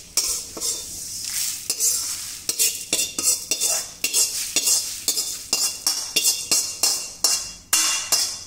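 Metal slotted spatula scraping roasted dried red chillies and toor dal out of a metal wok (kadai) onto a steel plate: repeated scrapes and clinks of metal on metal, about three a second.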